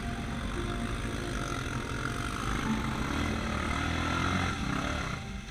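Yamaha Raptor quad's single-cylinder four-stroke engine running as the ATV drives through shallow muddy water, with the engine note rising and falling through the middle, then dropping off near the end.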